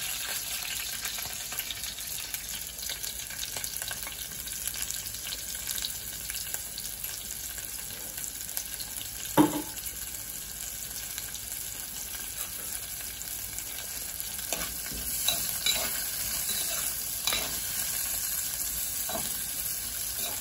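Dried sprats sizzling as they fry in oil in a clay pot, with one sharp knock about halfway. Near the end a spoon stirs them, clicking and scraping against the pot.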